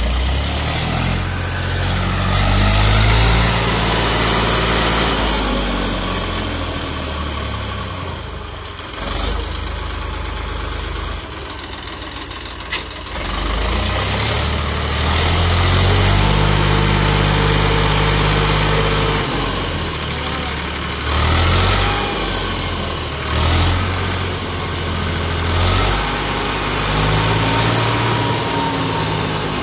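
Eicher 480 tractor's diesel engine running under load as it hauls a trolley of wet soil through mud, its revs rising and falling, with several short rev-ups in the second half.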